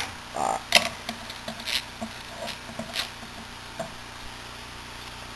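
Plastic caps being closed on small dropper bottles of aquarium test reagent and the bottles handled on a wooden desk: a few light clicks and taps, the clearest about one, two and three seconds in.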